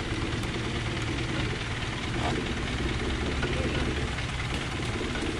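Off-road 4x4 vehicle's engine running at a low, steady speed, with no revving.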